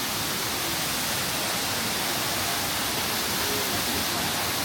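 A waterfall's steady rushing of falling water, an even hiss with no breaks.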